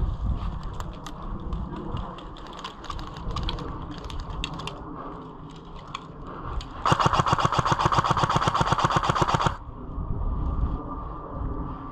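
Airsoft electric gun, a stock CZ Scorpion Evo SMG, firing one rapid full-auto burst of about two and a half seconds, starting about seven seconds in. A scatter of sharp clicks comes before it.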